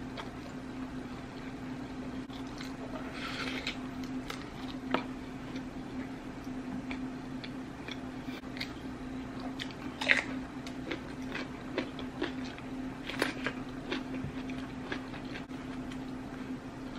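A person eating close to the microphone: chewing and biting with wet, squishy mouth sounds and scattered sharp crunches and clicks. The loudest come about ten seconds in and again about thirteen seconds in, over a steady low hum.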